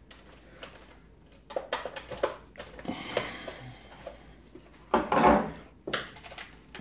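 Plastic clips of a GM instrument cluster's lens and bezel clicking and snapping as they are pried loose with a screwdriver, with some scraping of plastic. A louder plastic clatter comes about five seconds in as the bezel comes free.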